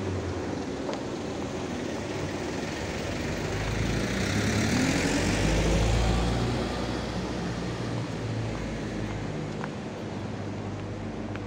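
Street traffic: engines running at low speed, with one vehicle passing close by and growing louder in the middle, its engine note rising, before fading back to a steady traffic hum.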